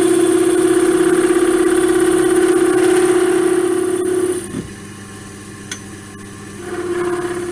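Wood lathe running while a turning chisel cuts a small laurel-wood blank: a steady, loud cutting whine and hiss over the motor hum. About four and a half seconds in, the tool comes off the wood and only the lathe's hum remains, and the cutting sound returns near the end.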